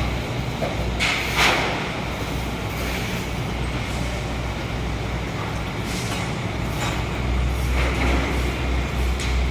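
Street traffic: a steady rumble of passing vehicles, with short hissing swells about a second in and again around six and eight seconds in.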